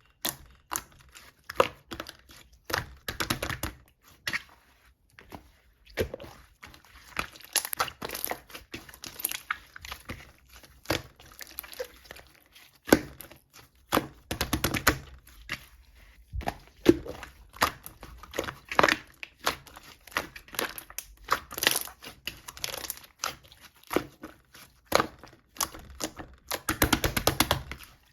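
Slime being squeezed, stretched and pressed by hand, giving irregular runs of sharp crackling clicks and pops with soft thuds.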